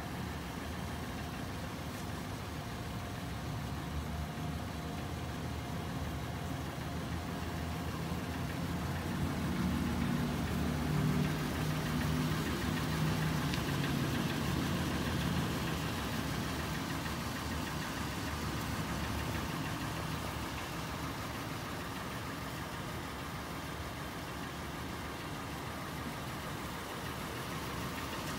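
Toyota 4Runner's 4.0-litre V6 idling steadily, a low even hum that grows somewhat louder for a few seconds about a third of the way in, then eases back.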